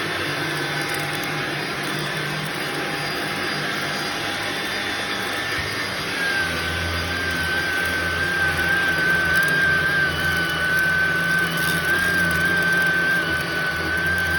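Shark vacuum cleaner running on a shag rug: a steady motor and airflow sound. About six seconds in, a high whistling whine and a deeper hum join and the sound grows a little louder.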